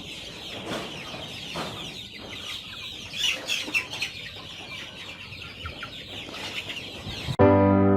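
A flock of chickens clucking and calling. About seven seconds in, electric piano music cuts in abruptly.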